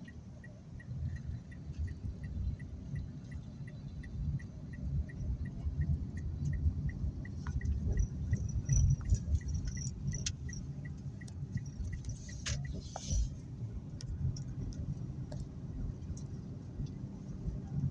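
Low rumble of a car's engine and tyres heard from inside the cabin, with a turn-signal indicator ticking steadily about three times a second that stops about two-thirds of the way through once the turn is made. Light jingling and rattles come and go over it.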